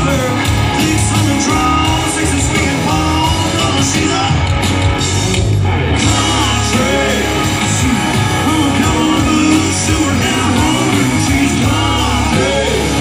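Live country-rock band playing loud, with electric guitars, drums and a lead singer, heard from among the concert audience.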